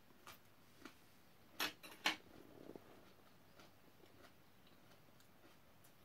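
Quiet mealtime sounds: a few faint clicks, then two sharper clicks close together about a second and a half to two seconds in.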